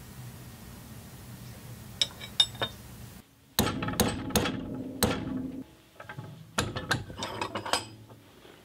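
Hammer striking a metal rod clamped in a bench vise, bending it into an exhaust hanger. A few light clinks come about two seconds in, then four sharp, ringing metal blows about half a second apart, and a quicker run of strikes near the end.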